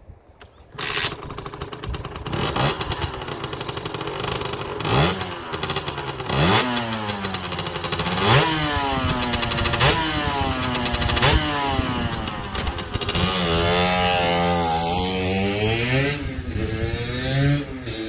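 Sherco 50cc supermoto's two-stroke engine catching on a kick start about a second in, then revved hard several times, each blip rising sharply and falling back, before the bike pulls away near the end. Its exhaust silencer has had half its rock-wool packing removed, which makes it much louder.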